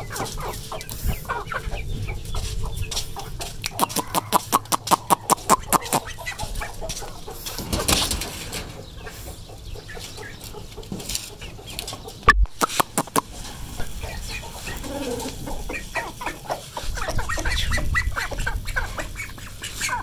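Chickens clucking in short repeated calls as grain is put out for them, busiest about four to six seconds in. About twelve seconds in there is a single sharp knock.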